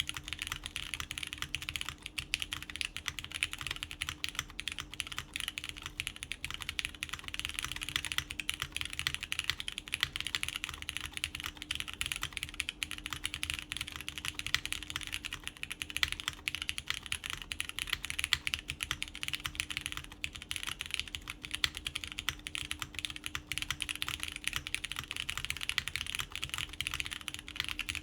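Continuous fast typing on a Daji Ocho Cuatro 84-key custom mechanical keyboard with lubed Cherry MX Brown switches, a polycarbonate plate and GMK keycaps: a dense, unbroken stream of key clacks.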